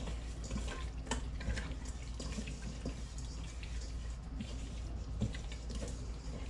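Raw merganser and ringneck duck breast pieces, wet from a milk soak and coated in dry seasoning, being squished and turned by hand in a metal bowl: a continuous run of small, irregular wet squelches and clicks.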